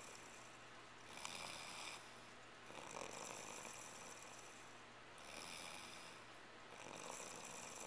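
Faint snoring of a sleeping woman: about four rasping breaths, one every couple of seconds.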